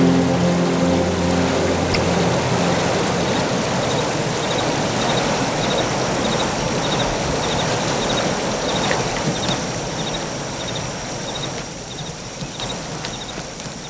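Steady rushing of a river's flowing water, easing a little near the end, with faint short high chirps repeating over it.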